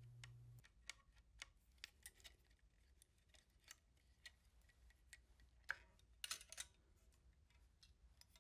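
Faint, scattered clicks and small metallic taps of a hand tool and loosened parts being handled while the air blower is removed from an industrial sewing machine, a few louder taps just past the middle. A low hum cuts off about half a second in.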